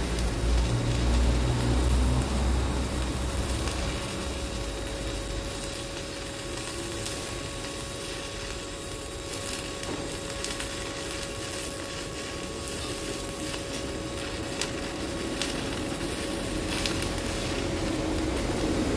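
Stick welding with a stainless-steel electrode: the arc crackles and sizzles steadily as weld metal is built up on a worn bearing seat of a Fuller transmission. A low rumble sits under it for the first few seconds, and a faint steady hum runs beneath.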